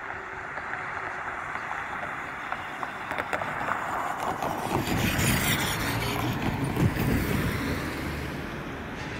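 Cars driving over a railroad grade crossing close by, with tyre noise rising to its loudest about five to seven seconds in as they pass and then fading, and a few sharp knocks from the tyres crossing the rails.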